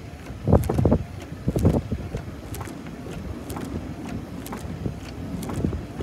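Wind buffeting the microphone in irregular low rumbling gusts, strongest in the first two seconds, with a few light ticks scattered through.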